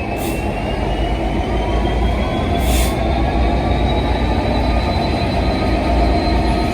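Diesel-hauled passenger train moving on the rails with a heavy, steady low rumble and a thin whine that climbs slowly in pitch. Two short hisses come right at the start and about three seconds in.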